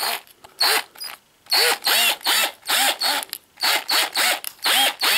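Parkside 12 V cordless drill's motor run in short trigger pulls in first gear, about eleven bursts at roughly two a second, each spinning up and winding back down.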